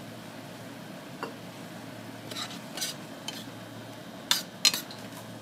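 Metal spoon stirring and scraping in a stainless steel sauté pan of shrimp and tomato sauce, giving scattered clinks against the pan, the two loudest close together near the end. A faint sizzle from the pan runs underneath.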